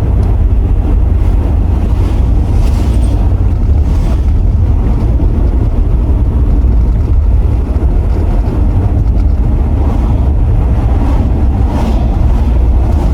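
Mercedes R129 SL500 with its V8 on the move at a steady pace: a loud, even low rumble of engine and road noise, with some wind noise over it.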